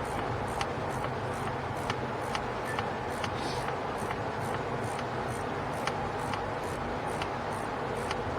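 Ratchet wrench clicking, about two clicks a second, as the center bolt of a new serpentine belt tensioner is wrenched down into its aluminum bracket, over a steady background rumble.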